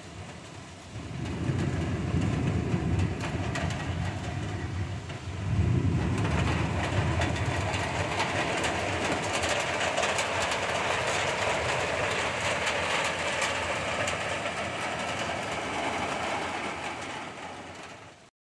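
Thunder rolling twice, a low rumble starting about a second in and a second, louder roll about five seconds in, over a steady hiss of heavy rain that fades out near the end.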